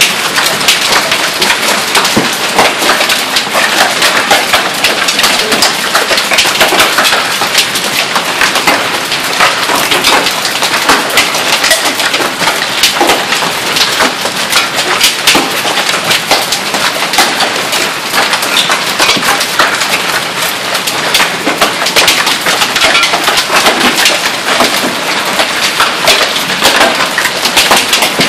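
Golf-ball-sized hail falling with rain: a steady, loud downpour packed with countless sharp clicks and knocks of hailstones striking the ground and nearby surfaces.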